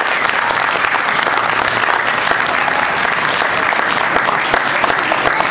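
Audience of children applauding, a steady patter of many hands clapping.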